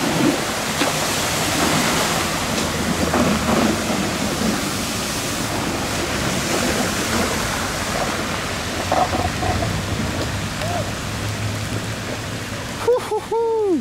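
Wakeboard and towing car ploughing through shallow floodwater: a steady rushing of spraying water, with rain falling. Near the end, voices shout briefly.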